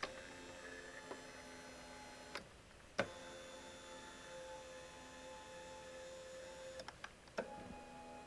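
Electric linear actuator motor of an older La-Z-Boy power recliner running under test, a faint steady motor hum as it drives the footrest mechanism. Sharp clicks come about 2.5 s and 3 s in and twice more near the end as the motor stops and restarts, and the hum's tone shifts after each restart.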